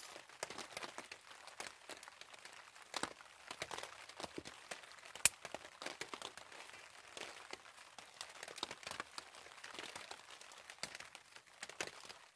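Small wood-burning twig camp stove fire crackling, with irregular light pops and one sharp snap about five seconds in.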